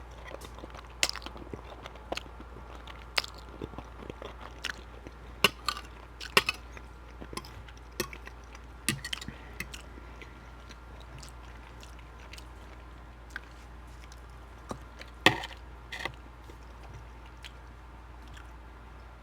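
Close-up chewing and mouth sounds of a person eating pasta: irregular wet clicks and smacks, busy for the first half, then sparse, with a louder pair of clicks about fifteen seconds in.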